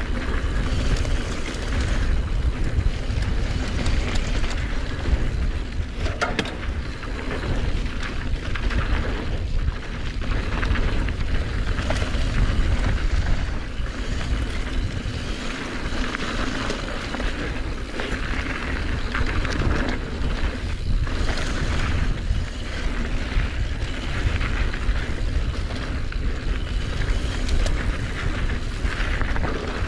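Mountain bike descending a dirt flow trail: steady wind rush over the action camera's microphone and tyres rolling on dirt, with scattered rattles and knocks from the bike over bumps.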